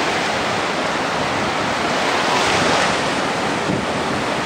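Small sea waves washing onto a sandy beach, a steady rushing that swells a little about halfway through, with wind buffeting the microphone.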